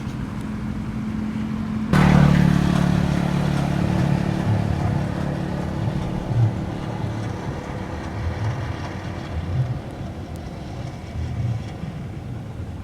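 A motor vehicle engine running close by, suddenly louder about two seconds in and then fading slowly.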